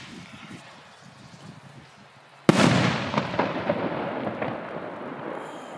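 A firework rocket's shell bursts with one sharp bang about two and a half seconds in, then a scatter of crackling strobe pops follows as the bang echoes and fades.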